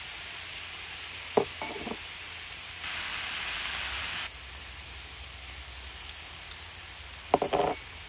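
Pork belly with green onions and garlic sizzling in its fat on a griddle pan over a gas burner, the sizzle swelling louder for about a second and a half near the middle. A few short clinks of metal tongs on the pan.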